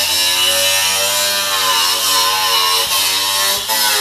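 Angle grinder with a cut-off disc cutting through the steel roof of a truck cab, its motor whine wavering slightly in pitch as the load changes, with a brief drop about three and a half seconds in.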